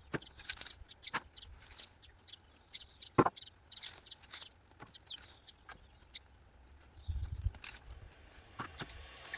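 Scattered knocks, clatters and rustles of wood being picked up and moved while clearing a small pile, the sharpest knock about three seconds in. Birds chirp in the background.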